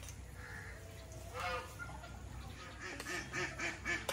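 Domestic waterfowl calling: one call about a second and a half in, then a quick run of repeated calls, about five a second, near the end.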